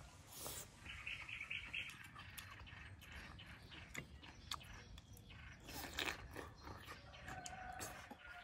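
A person chewing and crunching food close to the microphone, with irregular wet clicks and crackles. A bird chirps a quick run of about five notes about a second in.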